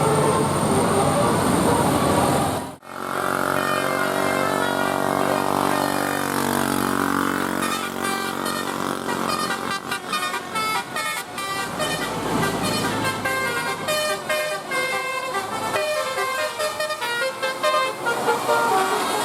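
Bus 'telolet' musical air horn playing tunes: after a sudden cut about three seconds in, held chords that slide downward, then from about eight seconds in quick runs of short notes jumping between pitches. Before the cut a different steady vehicle sound plays.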